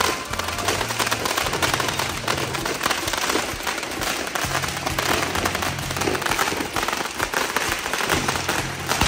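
Handheld firework tubes firing streams of sparks and shots upward, a dense, unbroken crackle of rapid pops.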